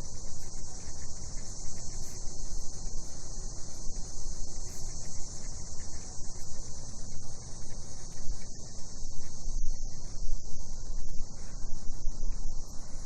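A steady, high-pitched chorus of cicadas at night, unbroken throughout, over an uneven low rumble.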